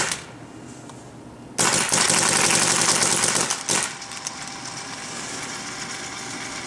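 Planet Eclipse Ego 11 paintball marker firing: one shot, then a fast two-second string of rapid fire, then one more shot. After that a quieter, steady hum carries on.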